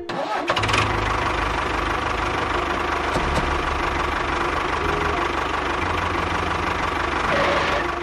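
An engine cranks and starts with a few quick clicks, then runs steadily. It is a tractor-engine sound, and it cuts off abruptly near the end.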